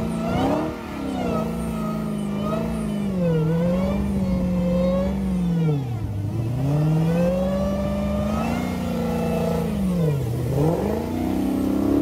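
Dodge Challenger SRT Hellcat's supercharged 6.2-litre V8 held at high revs in a burnout on thin buggy wheels. The revs drop sharply and climb back twice, about halfway through and near the end.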